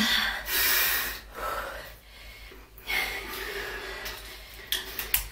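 A person sniffing hard through a small inhaler held to the nose: a loud, sharp intake of breath about half a second in, a shorter second one right after, then quieter breathing.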